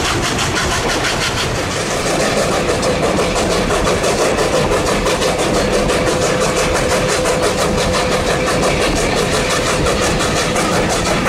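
Narrow-gauge steam locomotive working under steam with its train, the exhaust beat coming as a fast, even rhythm of about eight beats a second. A steady single tone runs through the noise from about two seconds in until near the end.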